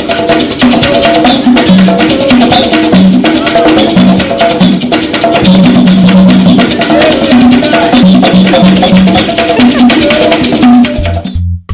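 Live drum group beating tall hand drums in a fast, busy rhythm, with rattles over a repeating low pitched line. Near the end it breaks off and gives way to different music.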